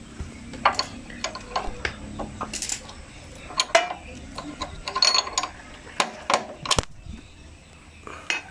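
An open-end wrench clinking and ticking against a nut and bolt on a dirt bike's rear suspension linkage as the nut is worked loose. It makes an irregular run of sharp metal clicks, the loudest a little past halfway.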